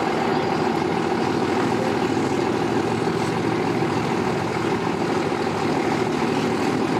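Boat and tow-vehicle engines idling steadily, several pitches layered in a constant hum.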